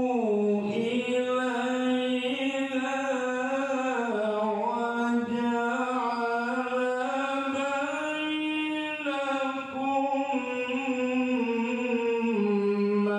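A man's solo voice chanting unaccompanied through a microphone and loudspeakers, in long held notes that glide slowly up and down in an ornamented melodic line.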